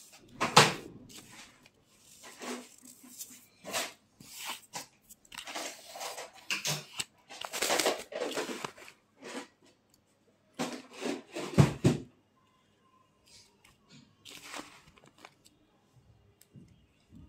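Hand squeezing and crushing damp naphthalene powder soaked with kerosene in a bowl: a gritty crunching in irregular bursts, dropping to a few faint crunches after about twelve seconds.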